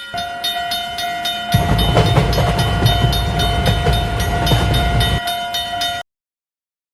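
Japanese railway crossing alarm clanging in a fast, even rhythm, with a train rumbling past from about a second and a half in until about five seconds. Everything cuts off suddenly about a second before the end.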